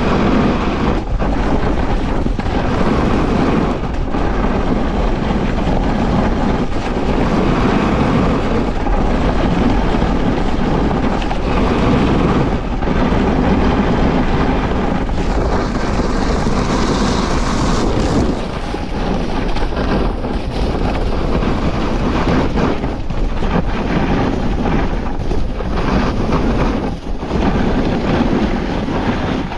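Wind rushing over the low, leg-mounted action-camera microphone while a snowboard slides and scrapes across packed, groomed snow. The noise stays loud, rising and falling with brief dips as the board turns.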